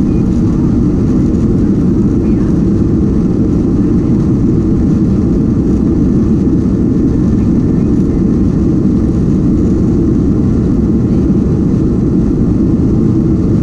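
Airliner's engines during takeoff: a loud, steady low rumble that holds unchanged throughout.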